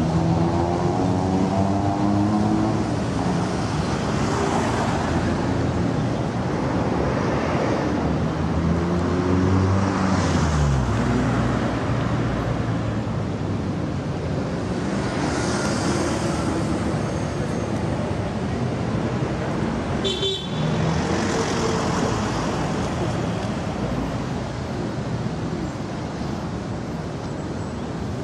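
City street traffic: cars and buses passing one after another in swells, their engines' notes falling as vehicles go by. A short horn toot sounds among them.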